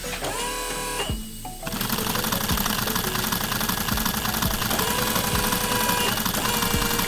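A fast, steady mechanical rattle of a running machine starts a couple of seconds in, with music under it.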